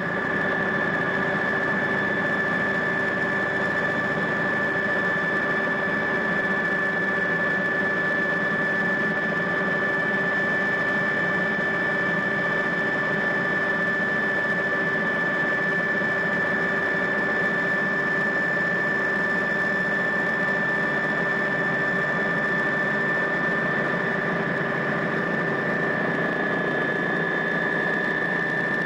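Helicopter engine and transmission running steadily, heard from inside the cabin: a constant machine hum with one strong high whine over it, unchanging throughout.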